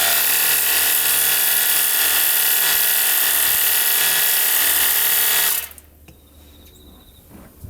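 Cordless 21 V handheld pressure washer running: a steady motor-and-pump whine with the hiss of the water jet, cutting off suddenly about five and a half seconds in.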